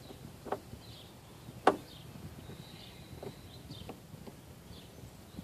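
Hand screwdriver turning a screw out of a plastic engine-bay housing: a few scattered small clicks and taps, with one sharper click about a second and a half in.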